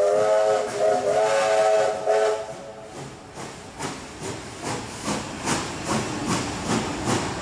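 Steam locomotive whistle sounding several tones at once, held for about two seconds and then cut off. Then a steady rhythmic clatter, about two or three beats a second, as the passing train's carriages roll by.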